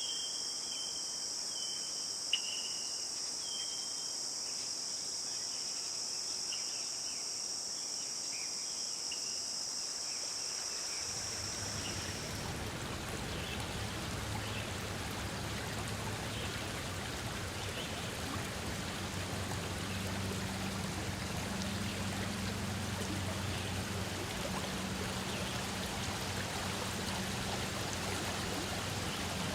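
A steady, high-pitched insect chorus with short bird chirps, which cuts off about twelve seconds in. Running stream water takes over from there.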